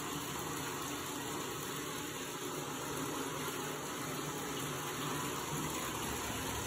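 Bathtub faucet running: a steady stream of water pouring into a tub with a shallow layer of water in it.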